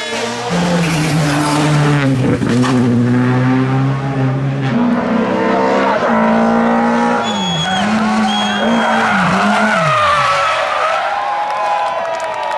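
Rally car engine revving hard and changing gear, with tyres squealing briefly near the middle. The engine note then falls away sharply as the car runs off the road into the grass.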